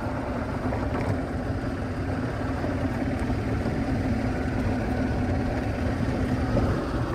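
Golf cart running steadily as it drives, with an even low hum and rumble.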